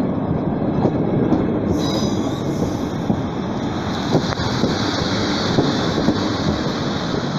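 Passenger train coaches passing close at speed: a loud, steady rolling rumble dotted with quick clicks of the wheels over the rail joints. A high hiss with a faint wheel squeal joins about two seconds in.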